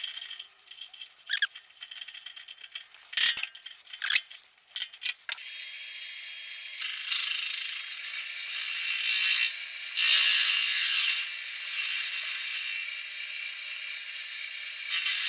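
Metal clicks and knocks of a chuck key tightening a part in a bench lathe's three-jaw chuck. About five seconds in the lathe starts and runs steadily, taking a facing cut, with a high-pitched cutting hiss that swells and eases.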